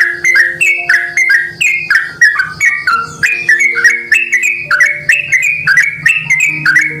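Yellow-vented bulbul (trucukan) singing a long rolling song: an unbroken run of quick bubbly, whistled notes, about five a second, played back to lure other bulbuls. Faint low held tones sit underneath.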